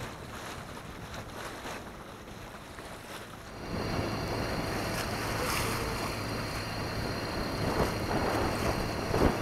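Wind buffeting the microphone over water rushing past a sailboat's hull. About a third of the way in it turns louder and rougher, with a steady low hum underneath and sharp gusts near the end.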